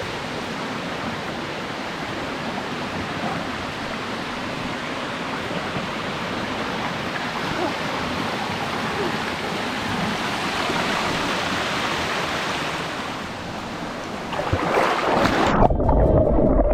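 Steady rushing of flowing water, a stream or small waterfall. Near the end a louder, duller rumble takes over for the last couple of seconds.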